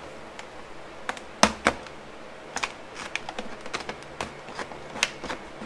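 Thin plastic of a 2-liter soda bottle clicking and crackling as a utility cutter slits it along its seam. The clicks come irregularly, several a second, with a sharper snap about a second and a half in.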